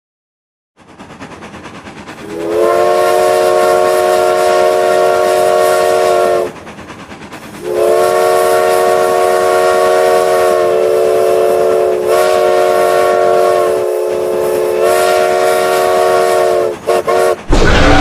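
Steam locomotive chime whistle blowing a chord of several notes: a blast of about four seconds, then a long blast of about nine seconds with brief dips. Underneath, a rhythmic chuffing noise starts about a second in and carries on throughout.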